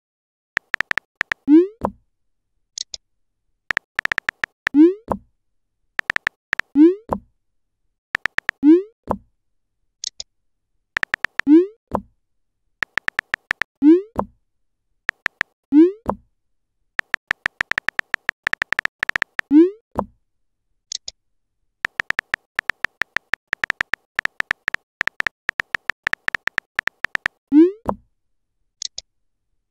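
Texting Story app sound effects: runs of rapid keyboard taps, each ending in a short rising 'bloop' as a message is sent, about nine times, with a few brief high blips between.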